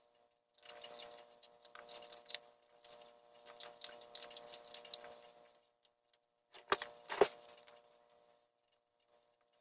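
Skunk and opossum rustling and scratching about in loose straw on a wooden porch, a crackling patter of small sounds for about five seconds. Then two sharp knocks half a second apart, about seven seconds in.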